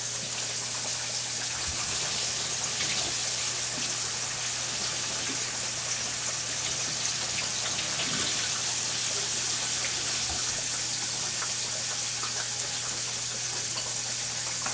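Flour-dredged pork chops frying in hot oil in a skillet, a steady sizzle.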